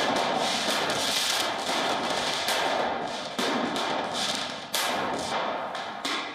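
Stun grenades and firecrackers going off in a series of loud bangs, roughly one a second, over a constant din of crowd noise.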